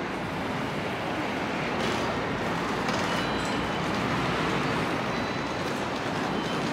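Steady outdoor vehicle noise, a continuous rumble and hiss with no distinct events, swelling slightly in the middle.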